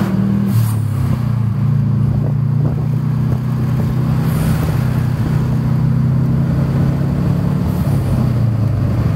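Subaru WRX's turbocharged flat-four engine running steadily under way, heard from inside the cabin over tyre and road noise.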